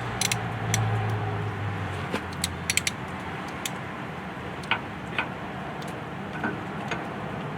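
Scattered light metal clinks and ticks of a gland wrench shifting and catching against a hydraulic cylinder's gland, most of them in the first few seconds. A low hum sits underneath and fades out about two seconds in.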